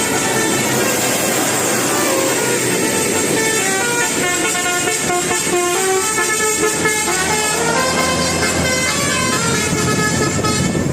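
Indonesian bus 'telolet basuri' melody horn playing a tune: a continuous run of held notes stepping up and down in pitch.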